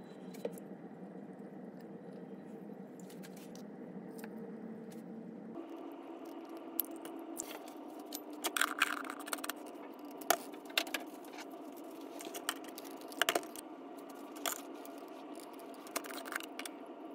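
Scattered clinks, taps and light scrapes of a spoon and ingredients against a clear plastic blender bottle as it is filled, coming thick and fast from about seven seconds in, with the lid screwed on near the end, over a steady low hum.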